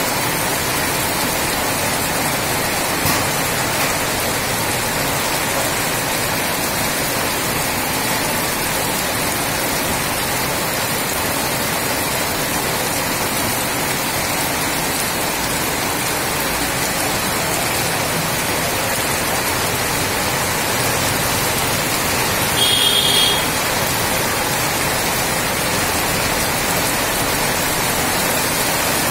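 Heavy rain pouring steadily onto a wet, flooded street, an even unbroken hiss. A brief high-pitched sound stands out about 23 seconds in.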